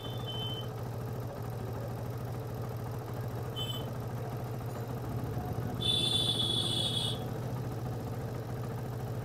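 TVS Apache RTR single-cylinder four-stroke engine idling steadily while its carburetor screw is being loosened to set the idle speed. A high whistling tone sounds for about a second, six seconds in, with a short chirp shortly before it.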